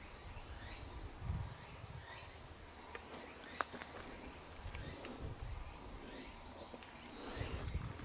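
An insect's steady high-pitched trill, with the soft crunch and thud of footsteps on the leaf-strewn forest floor.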